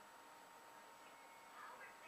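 Near silence: the low hum of a large hall, with faint distant voices near the end and a faint steady high tone.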